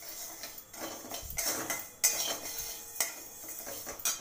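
Metal spatula stirring dry moong dal around a metal kadai while the dal dry-roasts: a gritty rustle of the lentils with metal scraping on metal. The sharpest strokes come about two, three and four seconds in.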